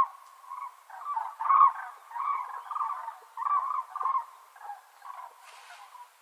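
Domestic chicken calling: a run of short, irregular notes that starts suddenly with a loud first note and fades toward the end.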